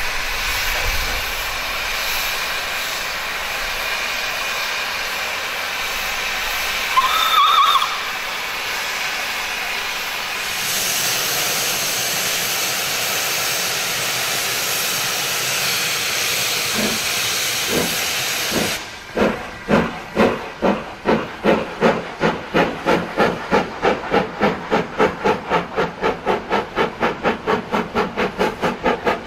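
Steam tank locomotive hissing steam at a stand, with a short whistle blast about seven seconds in. The hiss grows louder as steam jets from the cylinder drain cocks. Then a few slow exhaust beats begin and quicken into steady chuffing, about two to three beats a second, as it restarts a train up a steep 1 in 13 gradient.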